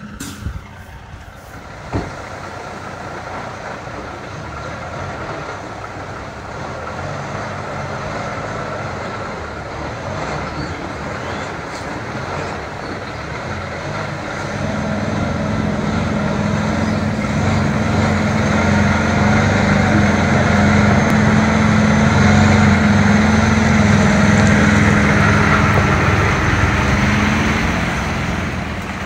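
Semi truck's diesel engine running at low speed as the tractor-trailer creeps closer and passes, a steady low drone that grows steadily louder through the second half. A single short knock about two seconds in.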